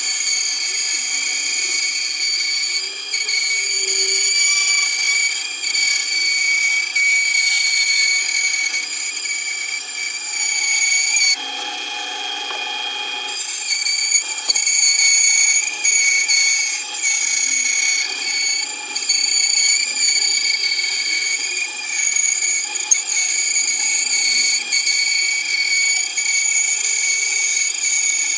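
Bandsaw running and cutting a wooden instrument back to shape as the board is fed through the blade, with a steady high whine. About eleven seconds in, the sound turns briefly to a hiss and drops a little before the whine returns.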